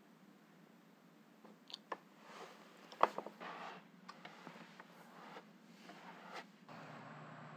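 Scattered knocks, clicks and short scraping noises, the loudest a sharp knock about three seconds in followed by a few quick clicks. A steady low hum comes in near the end.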